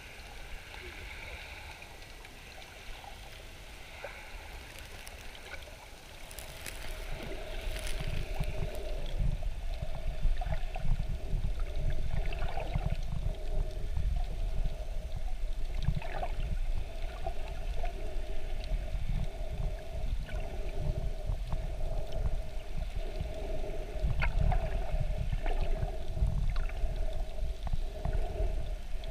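Sea water heard underwater: a low rumble and gurgle that grows louder about six seconds in, over a steady faint hum, with a few small clicks.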